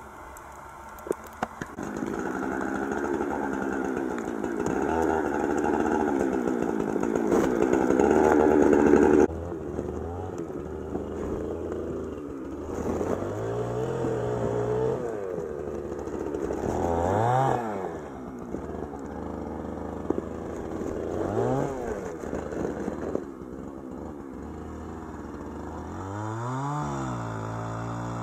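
A gasoline chainsaw idling and being blipped up in revs several times in short rising-and-falling bursts. Before that, for several seconds, an engine runs loud and steady at high revs, then cuts off suddenly.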